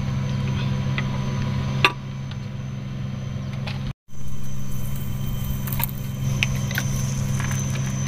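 A steady low engine hum, with a few sharp metallic clicks and clinks from a socket wrench on an extension bar as the 19 mm bolts of the circle rotation gear cover are tightened. The sound cuts out briefly about four seconds in.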